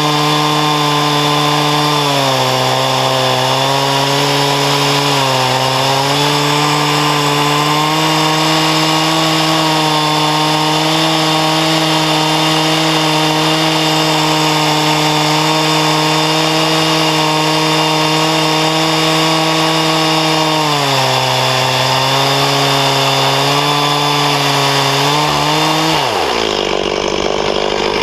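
Stihl 036 chainsaw on an Alaska chainsaw mill running at high revs through a sugar maple log, its pitch sagging briefly several times under load. The owner says the chain needs sharpening. About 26 seconds in, the revs fall away quickly to a low idle.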